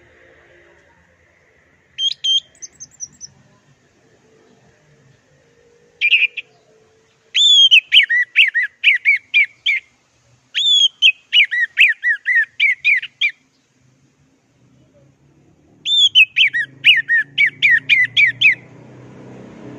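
Orange-headed thrush (anis merah) singing in separate loud phrases. Each phrase opens on a high note and runs into a rapid string of sharp falling notes, a few a second, with pauses between phrases. A low rumble rises near the end.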